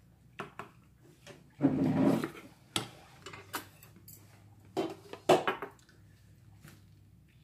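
Metal spoon and chopsticks knocking and scraping against stainless steel bowls while eating, a handful of short clinks with two louder, longer noises about two and five seconds in.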